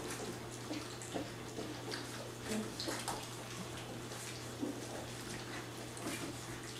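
Three-week-old Labrador retriever puppies lapping and slurping wet gruel from shallow pans: irregular small wet smacks and slurps, over a steady low hum.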